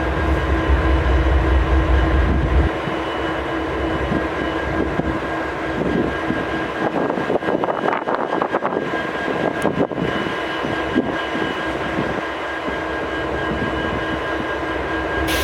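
Idling diesel freight locomotives, an EMD 710-G3B-powered SD70MACe and a GE CM44AH, giving a steady drone with a constant whine. The deep low rumble drops away about three seconds in, and an uneven rattling clatter comes and goes in the middle.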